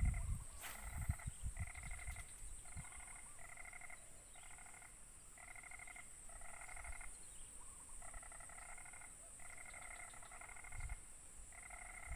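A frog calling over and over in a swamp, a half-second pulsed call about once a second, over a steady high insect drone.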